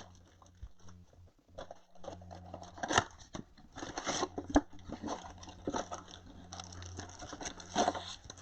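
Trading-card pack wrappers and cardboard boxes being torn, crinkled and handled, a stream of small crinkles, clicks and snaps, the sharpest about 3 seconds in. A faint steady low electrical hum runs underneath.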